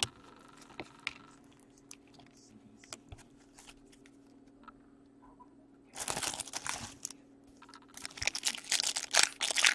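Foil wrapper of an Upper Deck Black Diamond hockey card pack crinkling and tearing as it is pulled open, in two bursts, one about six seconds in and another from about eight seconds. The wrapper is hard to open. Before that there are only a few faint ticks of cards being handled.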